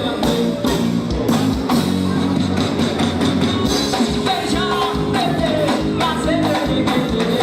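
Axé band playing live: a sung melody over a drum kit and percussion keeping a steady, upbeat beat.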